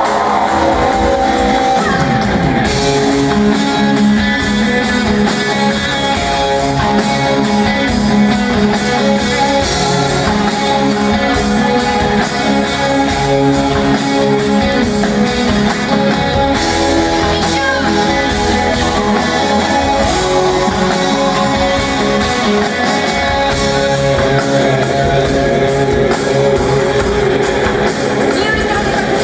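Live band playing loud pop-rock, with a drum kit keeping a steady beat under guitar and keyboard, heard from within the audience of a concert hall.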